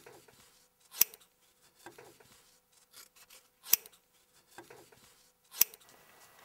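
Scissors snipping: three sharp snips about two seconds apart, with faint rustling and rubbing between them.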